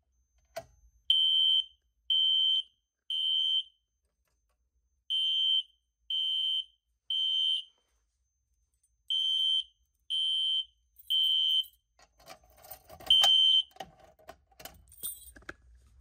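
System Sensor SpectrAlert Classic horn sounding a high-pitched temporal-three evacuation pattern: three short beeps, a pause, three times over, set off by a pulled Simplex 4251-20 fire alarm pull station. Near the end the pattern stops, giving way to clicks and clatter and one last short beep.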